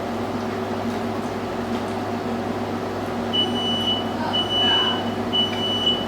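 Smoke alarm beeping three times, a high-pitched tone about half a second long roughly once a second, starting a little past halfway; it has been set off by chicken cooking under the oven broiler. A steady low hum runs underneath.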